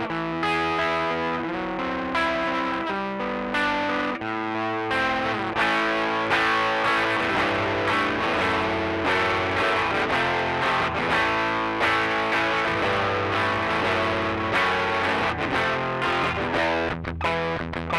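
Electric guitar played through a Rocktron Austin Gold overdrive pedal set with drive and pre-bass at 12 o'clock, giving a light overdriven tone: a continuous run of chords and single-note lines, with short choppy strums near the end.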